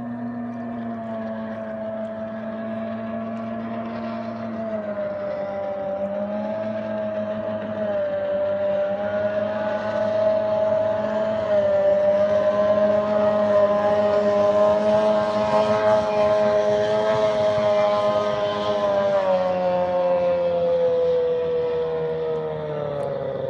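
Mercury Mark 28 two-stroke racing outboard ('rat motor') on a vintage hydroplane running with a steady, buzzy engine note. The note wavers a little in pitch, grows louder through the middle, and then falls in pitch over the last few seconds.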